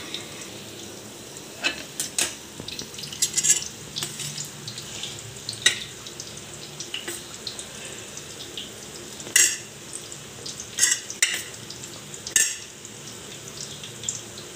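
Steel spoon clinking and scraping against a steel plate while crumbly mawa (khoya) filling is scooped into a samosa pastry cone: scattered sharp clicks over a steady low hiss.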